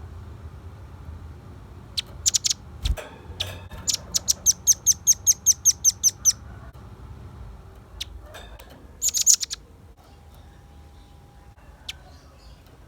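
Velvet-fronted nuthatch calling in high, sharp notes. A few quick notes come first, then a rapid even run of about a dozen notes lasting some two seconds, then another short quick cluster.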